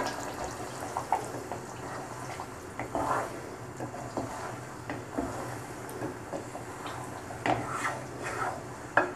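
Wooden spatula stirring a thick gravy of green peas and paneer cubes in a non-stick pot, with irregular soft scrapes and knocks against the pot, over a low steady hum.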